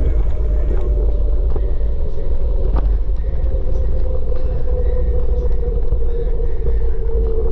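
Kaabo Wolf King GT electric scooter riding along at speed: steady wind buffeting on the handlebar-mounted camera and tyre rumble. A faint steady motor whine runs underneath and sinks slightly in pitch near the end.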